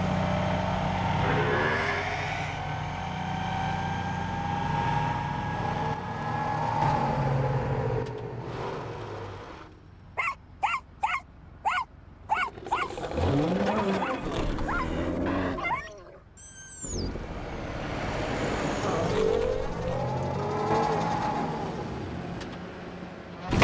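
Film sound mix of a monster pickup truck driving through traffic: a steady engine and road hum, broken about ten seconds in by a quick run of about seven short pitched calls, a rising squeal and high screeches, with animal-like creature growls.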